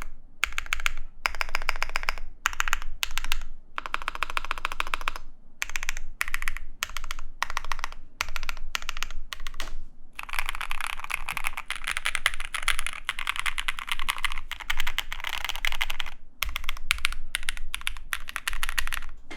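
Typing on a mechanical keyboard fitted with lubed and filmed JWK/Durock Epsilon linear switches in nylon housings, with a polycarbonate plate and GMK keycaps. It gives a deep keystroke sound. The typing comes in quick bursts with short pauses, with a longer unbroken run in the middle.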